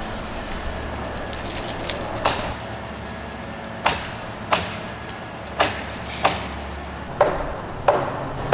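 A series of about seven sharp knocks, several coming in pairs roughly half a second apart, over a steady low rumble.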